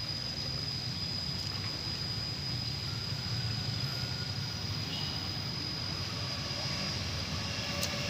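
Steady low rumble of background noise, with a thin high-pitched whine held almost throughout.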